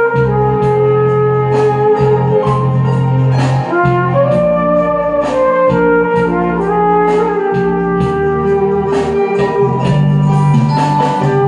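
A valved brass horn plays a melody in long, held notes over a backing track with a steady bass line and a regular beat.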